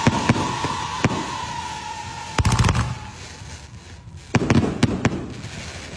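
Fireworks going off: a hissing haze with a steady whistle-like tone that fades over the first two seconds or so. Two clusters of sharp cracking bangs follow, about two and a half and four and a half seconds in.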